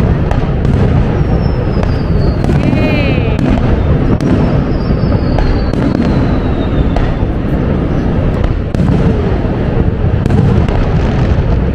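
Fireworks display: aerial shells booming and crackling in quick succession, a continuous barrage. Two long falling whistles sound through it in the first half.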